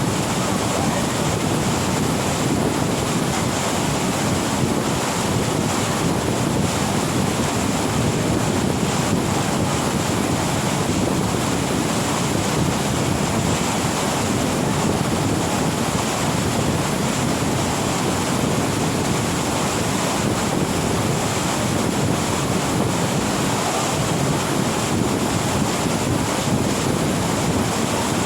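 Steady rushing of falling water from the Urlătoarea waterfall, an even, unbroken roar.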